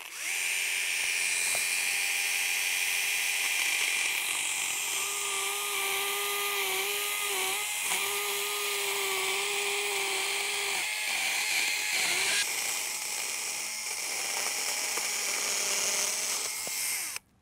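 Battery-powered Pellenc pruning chainsaw running and cutting lengthwise through an old grapevine arm: a steady electric motor whine with the rasp of the chain in the wood, wavering as the chain bites. It stops abruptly near the end.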